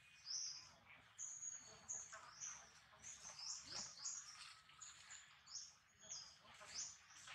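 Birds chirping in short, high, repeated calls, about two a second, faint.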